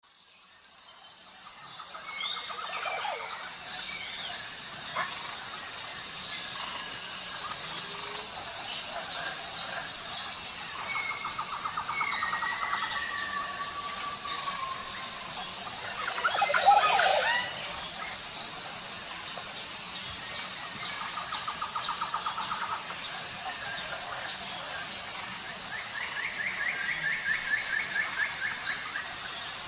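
Forest ambience: birds calling and trilling over a steady, evenly pulsing high-pitched drone. A louder call that slides in pitch stands out about seventeen seconds in. The sound fades in over the first two seconds.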